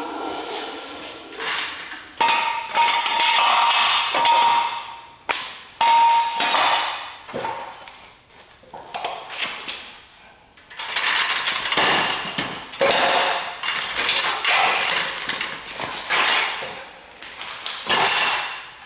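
Rusty steel truck frame from a 1968 Datsun 520 clanking and scraping against metal as it is shifted and set onto a steel welding table. There are repeated knocks, long grinding scrapes, and a clear metallic ringing note a few seconds in.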